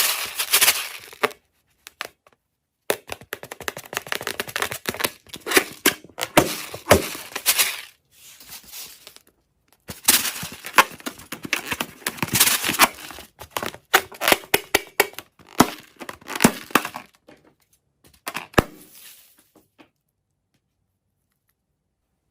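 Crackling, crinkling handling noise in four bursts of a few seconds each, stopping about three seconds before the end.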